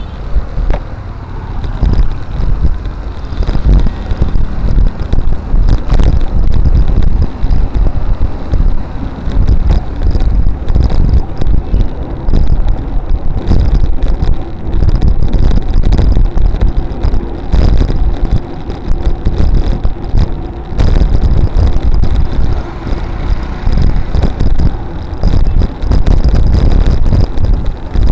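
Road traffic of auto-rickshaws, cars and motorbikes heard from a moving bicycle, with wind rumbling and buffeting on the microphone, the loudness jumping up and down throughout.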